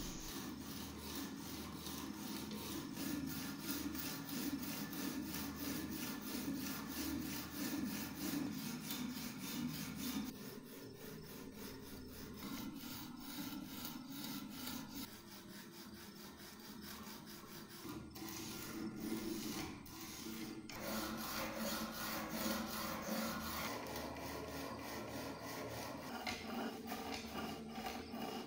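A hand file rasping back and forth along the edges of a clamped stack of handle pieces in steady, repeated strokes, shaping them to one profile. It goes a little softer through the middle stretch.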